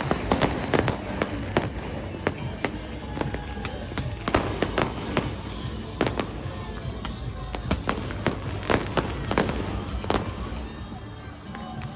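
Fireworks going off in an irregular run of sharp bangs and cracks, several a second at times, thinning out near the end, with music playing underneath.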